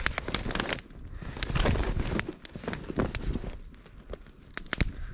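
Rummaging in a soft fabric bag: irregular rustling and crinkling of the bag's material, with scattered small clicks and knocks as things inside are handled.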